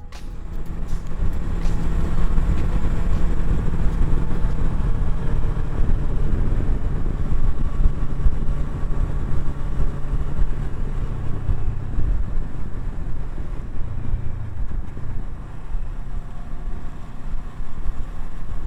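Kawasaki Versys 650 parallel-twin engine running steadily as the motorcycle rides along a road, with wind and road noise over it.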